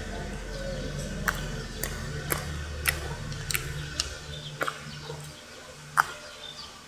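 Homemade clear-glue slime being squished in the hand, giving sharp irregular clicks and pops, about one every half second to a second, with a louder one near the end.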